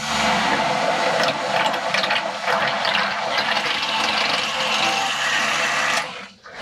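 Boat bilge pump running and pumping out water that a leak in the hull is letting into the bilge. The sound is steady and cuts off abruptly about six seconds in.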